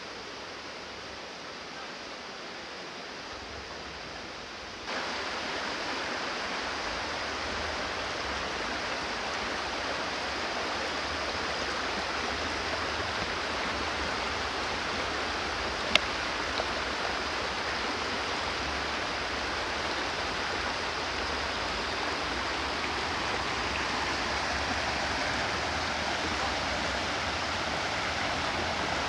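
Steady rush of a shallow, rocky creek, getting louder about five seconds in. A single sharp click partway through.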